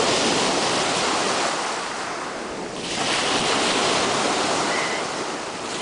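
Small sea waves washing onto the beach, the sound swelling twice about three seconds apart, with wind on the microphone.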